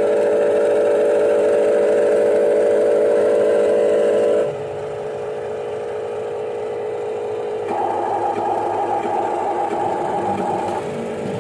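Steady electric whine of radio-controlled construction models' motors. It drops in level about four seconds in, then rises to a higher pitch about eight seconds in as the load changes.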